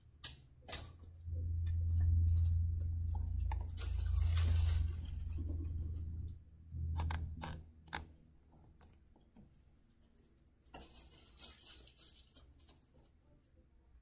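Scattered keyboard and mouse clicks as an entry is typed into a software field. A low rumble runs from about a second in to about seven and a half seconds in, the loudest sound.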